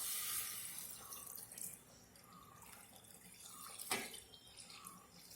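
Wheat milk being poured into a heavy-bottomed pan: a splashing pour that tapers off within about two seconds, then faint drips and a light knock about four seconds in.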